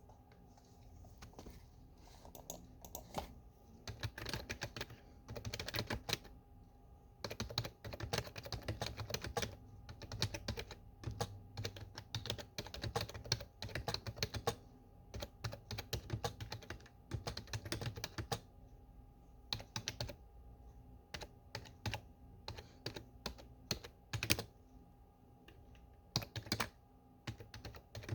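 Typing on a desktop computer keyboard: runs of quick key clicks in bursts, broken by short pauses, over a faint steady hum.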